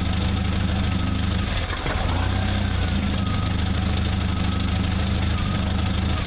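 1995 Jeep Wrangler YJ engine idling, with a brief waver about two seconds in. The idle is unsettled by a loose connector plug at the ignition coil, which the owner suspects of cutting the engine out.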